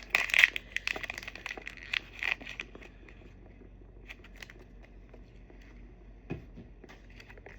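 Small plastic wrapper of a miniature toy item being torn open and crinkled by hand, busiest for the first couple of seconds, then a few scattered crinkles and light taps.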